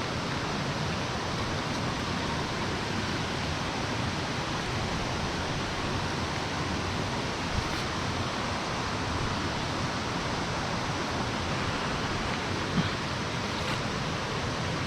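Steady rush of flowing stream water, an even hiss with no breaks, with a couple of faint clicks about halfway through and near the end.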